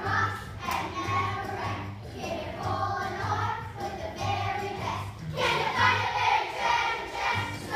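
A group of young children singing together over a musical accompaniment with a regularly pulsing bass. It grows a little louder about two-thirds of the way through.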